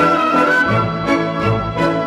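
Orchestral music with a steady beat.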